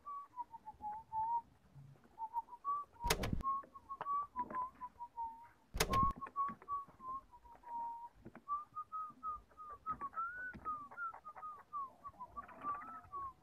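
A whistled tune, one clear tone wandering up and down between notes. Two sharp knocks cut in, about three seconds in and again near six seconds.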